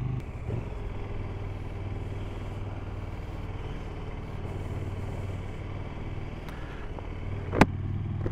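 KTM motorcycle engine running at low, steady revs while the bike rolls slowly along a narrow paved street, heard from the bike itself. There is one sharp click near the end.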